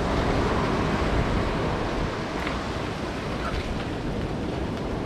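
Steady wash of surf breaking on the beach, with wind rumbling on the microphone. A couple of faint small knocks come partway through.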